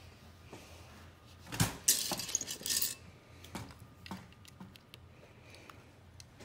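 Plastic LEGO bricks clattering against a ceramic bowl as a hand rummages through them for about a second and a half, followed by a few light clicks of pieces being handled and pressed onto the build.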